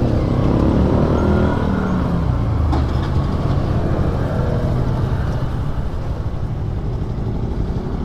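Honda Dio 110 cc scooter's single-cylinder four-stroke engine running at a steady idle.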